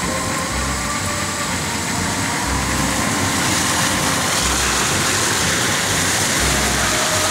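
Off-road SUV engine running steadily under a constant rushing hiss, with a low throb about every two seconds.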